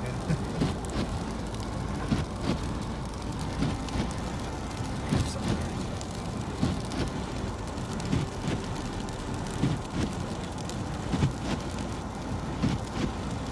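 Steady rumbling noise of a car driving on a snowy, slushy road, with scattered knocks and clicks throughout.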